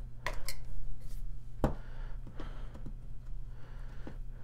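A metal survival tin with a wire bail handle being handled and turned over: about six light clicks and taps of metal knocking on metal, the sharpest about a second and a half in, over a low steady hum.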